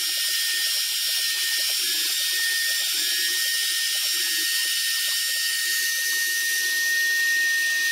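CNC machine's router spindle running at speed as it cuts gasket paper, giving a steady high whine over a hiss. A lower whir comes and goes in short spells underneath.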